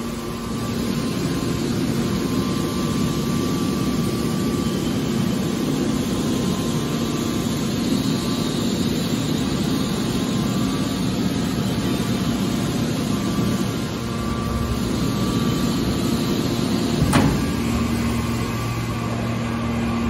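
Hydraulic power unit of a scrap metal baler press running steadily, a hum with a steady whine over it. A single sharp clank sounds once, late on.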